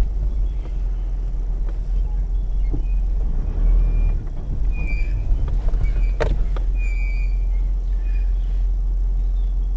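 4x4 vehicle driving, heard as a steady low rumble, with a few short high-pitched squeaks and a single sharp knock about six seconds in.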